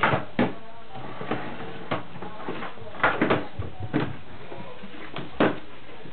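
Metal vacuum cleaner extension tube knocking and clattering on a hardwood floor as a baby handles it, in a string of irregular knocks.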